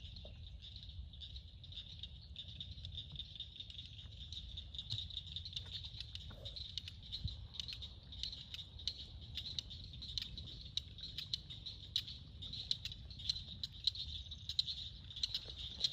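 Swamp ambience: a steady high-pitched chorus with a scatter of sharp ticks that grows denser toward the end, over a low rumble.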